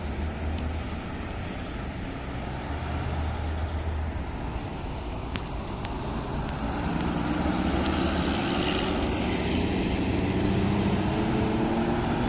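A heavy road vehicle's engine rumbling amid traffic noise, then accelerating from about halfway through, its pitch rising steadily as it grows louder.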